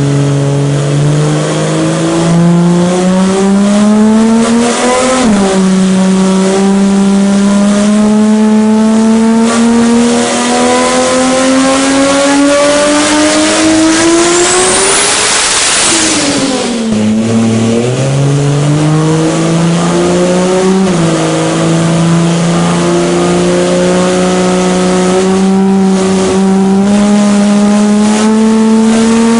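Toyota Supra's big single-turbo inline-six at full throttle, revs climbing steadily through the gears: a sharp dip about five seconds in, a long climb to a peak with a loud rushing hiss about halfway, a fall, then another long climb with a shift about two-thirds of the way through.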